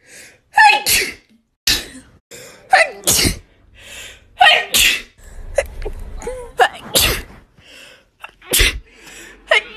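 A rapid run of human sneezes, about eight in quick succession. Each is a sharp, loud burst, several led by a short rising 'ah' intake, with abrupt breaks between them where separate clips are cut together.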